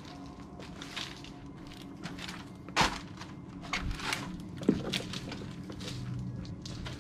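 Footsteps crunching and scuffing over debris on a littered floor, with two louder knocks, about three seconds in and just before five seconds.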